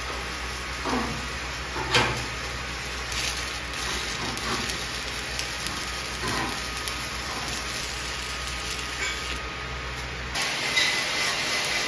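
Stick welding with 7018 rods on steel: the arc's steady hiss while a bead is laid, with a couple of short metal knocks in the first two seconds. Near the end the sound changes abruptly to a brighter hiss.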